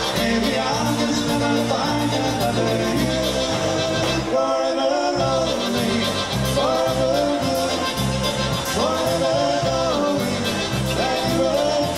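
Live polka band playing dance music with a steady bass beat and a melody line; the bass drops out briefly about four seconds in.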